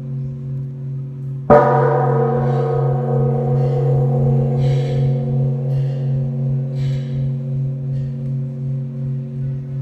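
Vietnamese pagoda bell struck once, about a second and a half in, over the low hum of the previous stroke still ringing. The new stroke rings with many overtones and dies away slowly, with a steady pulsing waver in its loudness.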